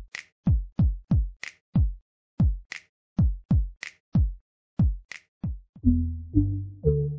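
Electronic background music: a drum-machine beat of kick and snare hits, with pitched synth bass notes coming in about six seconds in.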